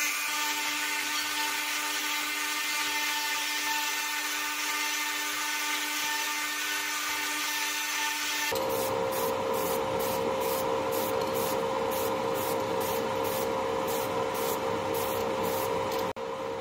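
Rotary tool with a small burr grinding the cast iron of an antique spirit-stove stand, a steady high whine. About halfway through it cuts off and a sandblasting cabinet takes over: a steady hum under a hiss that pulses about twice a second.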